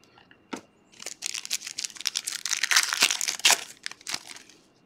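Panini Prizm trading-card pack wrapper crinkling in gloved hands, in quick irregular rustles from about a second in, after a single click.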